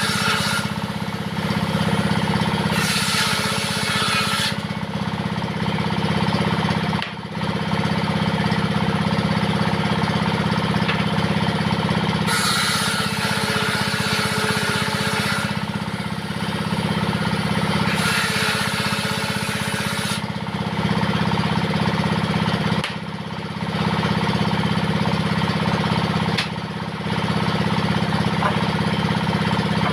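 Diesel engine running steadily as it drives a table saw. The saw blade rips lengthwise through wood in several stretches of a few seconds each, with brief lulls between cuts.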